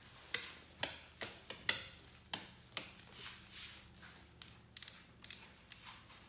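Irregular light clicks and taps, about a dozen short sharp ones, from small objects being handled.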